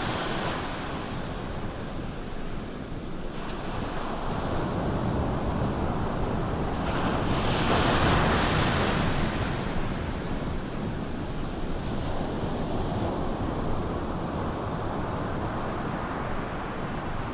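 Ocean surf breaking and washing up a sandy beach, a steady wash with a louder surge about halfway through.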